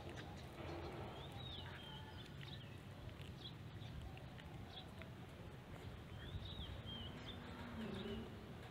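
A cat chewing food, with faint small clicks, while a bird in the background sings the same short whistled phrase twice, about a second in and again after about six seconds.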